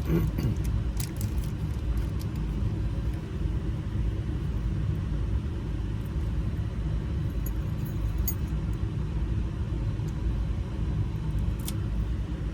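Steady low rumble, with a few faint light clicks.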